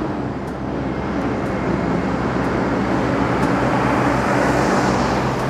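Diesel semi-trailer truck hauling two trailers driving past on a road: a steady engine hum under tyre and road noise that grows louder as it approaches, loudest about four to five seconds in.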